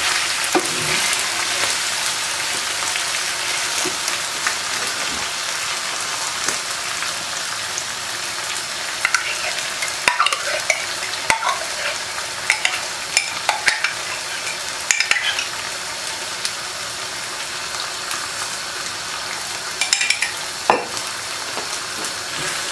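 Beef liver and onions sizzling steadily as they fry in a steel pan, stirred by a wooden spatula. From about nine seconds in there are scattered clicks and scrapes of utensils as sour cream is spooned from a jar into the pan.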